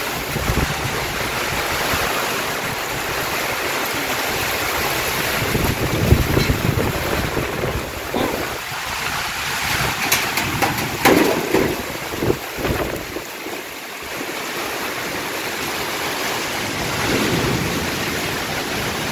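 Strong wind gusting through trees during heavy rain, a steady rushing noise. Gusts buffet the microphone a few times, about six seconds in and again around ten to twelve seconds.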